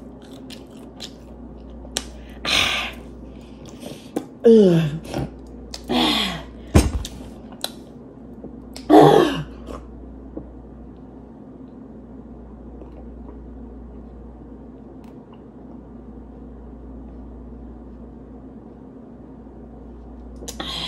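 A woman coughing and clearing her throat, with short voiced cries, half a dozen bursts over the first ten seconds, reacting to the burn of very spicy sauce. After that only a steady low room hum.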